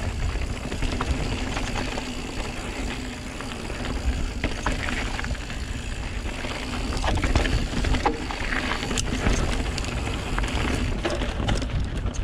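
Santa Cruz Megatower full-suspension mountain bike descending a dirt and gravel trail: tyres rolling over the surface with a steady low rumble, and scattered clicks and rattles from stones and the bike.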